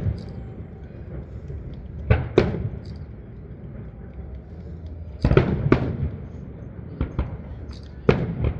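Aerial fireworks bursting: a series of sharp bangs, mostly in pairs a few tenths of a second apart, each with a short echoing tail.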